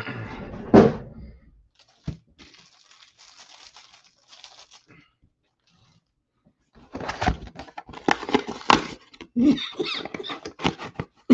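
A short vocal sound at the start. After a lull comes a run of sharp crackling and crinkling as a 2021 Bowman baseball card hobby box is ripped open, its wrapper and cardboard lid torn away.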